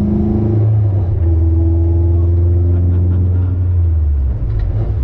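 Mazda Miata NB's four-cylinder engine running loud and steady. Its note shifts pitch a few times, with a brief dip in loudness about four seconds in.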